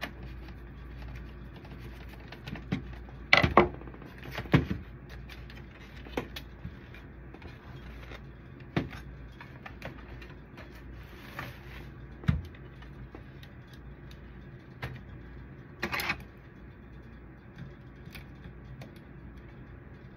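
Plastic copier unit parts being handled and fitted together: scattered clicks and knocks, the loudest a little over three seconds in and again about four seconds before the end, over a steady low hum.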